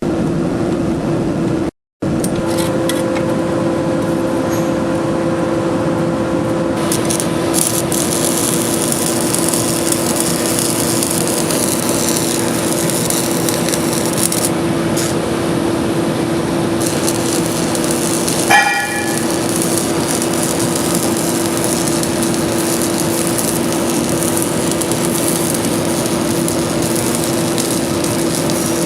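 A machine running steadily: a constant hum over a loud, even rushing noise. It cuts out briefly about two seconds in, and a short ringing clink sounds about eighteen seconds in.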